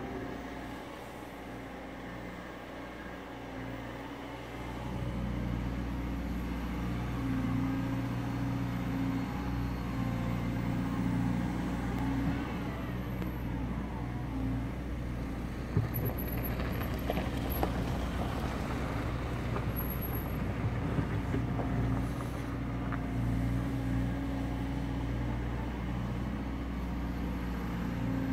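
Wheeled excavator's diesel engine running while it digs, getting louder about five seconds in and staying at a steady working note, with a few short knocks past the middle.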